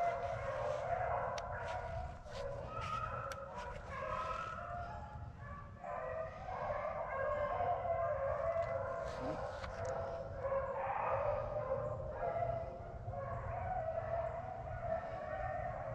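Pack of beagles baying in an overlapping chorus as they run a rabbit.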